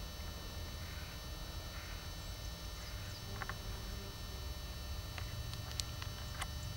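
Outdoor ambience dominated by a steady low rumble of wind on the microphone, with a few faint sharp clicks and faint bird chirps.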